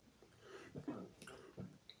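Faint swallowing and wet mouth clicks of a man gulping water, a few short irregular sounds with the loudest a little under a second in.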